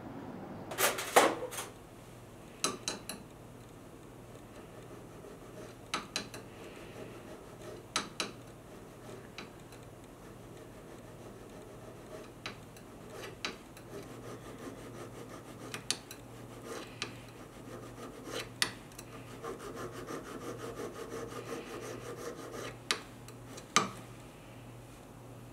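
Hand needle file scraping a small metal pendant setting braced against a wooden bench pin, with sharp clicks and taps now and then, over a faint steady hum.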